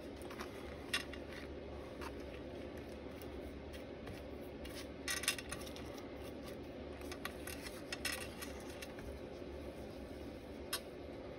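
Hands handling a water-filled plastic zip bag and a sheet of cardstock on a cutting mat: soft rustles with a few light clicks and taps, the loudest about five seconds in and near the end, over a steady faint room hum.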